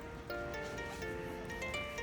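Background music of gently plucked, harp-like notes.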